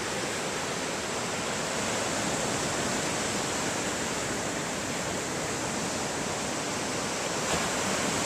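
Ocean surf breaking on a beach: a steady rushing wash.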